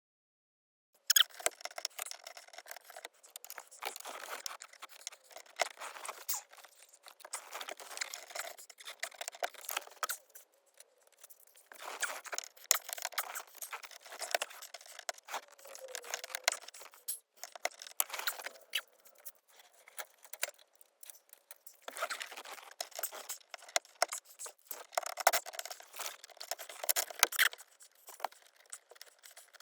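Irregular clicking, rattling and scraping of small hand tools against plastic interior trim: a Torx screwdriver and loose bits being handled while screws are backed out of the roof trim. The noise comes in bursts with short lulls, starting about a second in.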